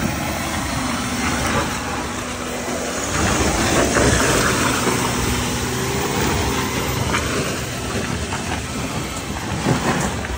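Porsche Cayenne towing an off-road camper over a rough, muddy trail: steady engine and running-gear rumble with a few knocks and rattles from the rig.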